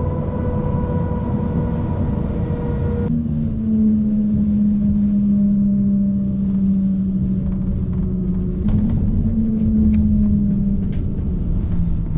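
Inside a moving tram: the low rumble of the car running on its rails, with a steady electric hum that drops abruptly to a lower, stronger pitch about three seconds in, and a few sharp clicks near the end.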